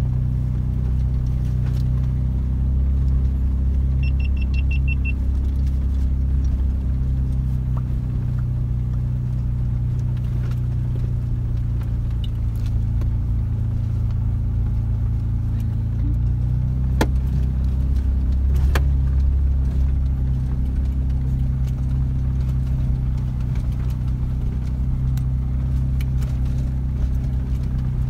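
Steady low engine and drivetrain rumble of an off-road vehicle crawling slowly up a rocky dirt track, heard from inside the cab, with scattered light knocks and rattles. About four seconds in comes a quick run of short electronic beeps lasting about a second, and a little past halfway two sharp clicks.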